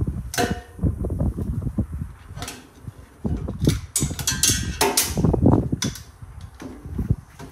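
Irregular metallic clicks, clacks and knocks of an AR-15 rifle being worked by hand to clear a jam.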